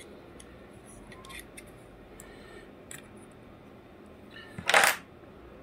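Light clicks and handling of small plastic and metal parts as a night vision attachment is fitted onto a rifle scope, with one short, loud burst of noise near the end.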